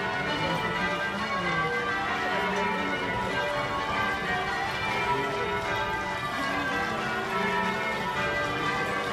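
Church bells being rung in changes, many overlapping bell tones sounding continuously, with a crowd talking underneath.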